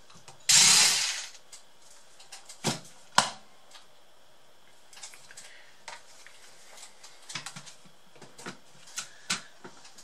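Cordless electric screwdriver running once, for under a second, turning a screw in a laptop's plastic case. Sharp knocks and scattered small clicks of the plastic chassis being handled follow.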